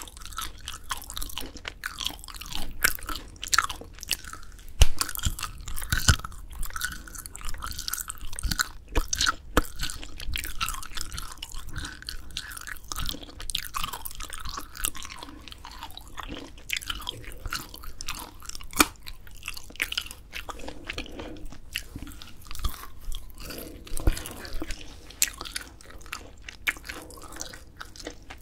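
Close-miked chewing of grilled dried filefish fillet: irregular, crisp crunching and wet mouth sounds, with pieces bitten off between chews.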